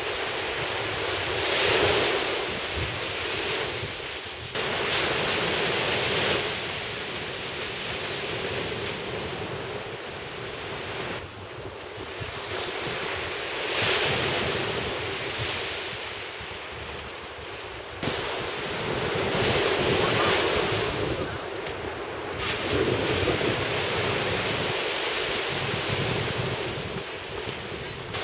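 Shorebreak surf crashing and washing up a sand beach, swelling and ebbing every few seconds, with wind rumbling on the microphone. The sound changes abruptly several times.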